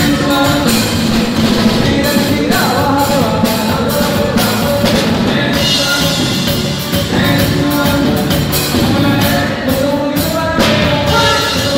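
Live norteño band playing a song with accordion, bajo sexto, electric bass and drum kit, with a voice singing over the band.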